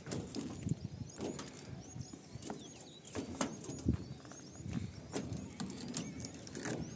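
Irregular clicks and knocks, with small birds chirping in short, high, hooked calls in the background.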